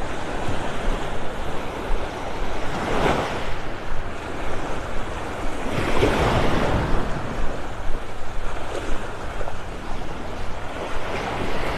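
Small Gulf of Mexico waves breaking and washing up the sand at the shoreline, surging louder about three seconds in, again around six seconds, and near the end. Wind on the microphone adds a low rumble.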